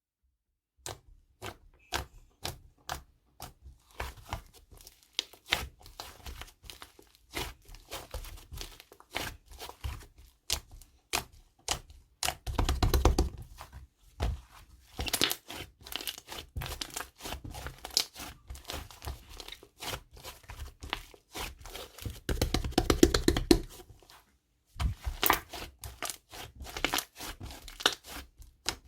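Slime being pressed, poked and mixed by hand: a string of sharp, sticky pops and clicks, with two denser runs of crackling about a third and three quarters of the way through.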